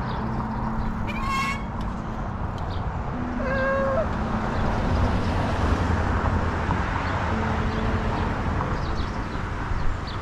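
Wind and road noise from riding a bicycle, with two short high-pitched squeaks, one about a second and a half in and the other near four seconds.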